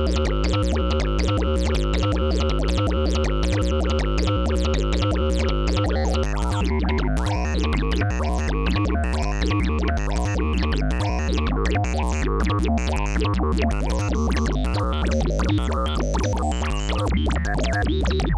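Synthesizer sequence played through the Make Noise QPAS, a four-core stereo analog multimode filter with resonant peaks. A repeating bass pattern runs under fast, clicky notes, and the filtered tone shifts and grows busier from about six seconds in as the filter is adjusted and modulated.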